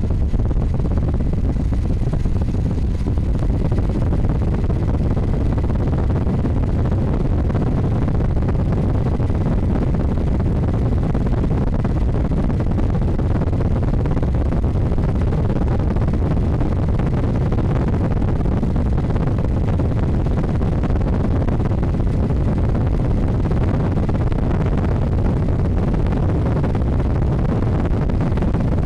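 Steady, loud rumble of a helicopter's engine and rotors heard from aboard, with wind noise on the microphone.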